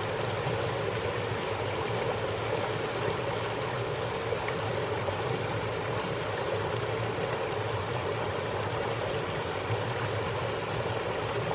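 Creek running high over rocks after heavy rain: a steady, unbroken rush of water.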